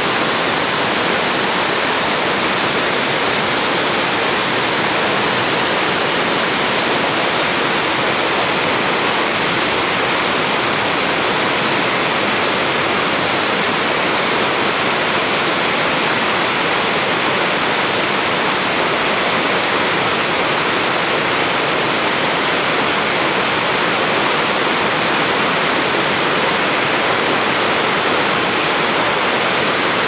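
Steady rush of falling, splashing water, an even hiss that does not change.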